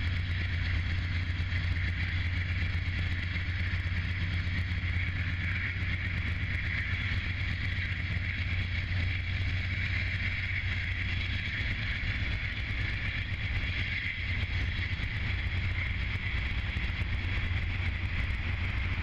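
Freight train rolling past: a steady low rumble of the wheels on the rail, with a constant higher hiss over it and no change in level.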